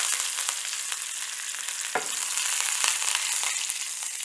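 Fresh curry leaves sizzling in a small pan of hot oil with mustard seeds and urad dal for a South Indian tempering, a loud hiss with sharp crackles and pops that slowly dies down.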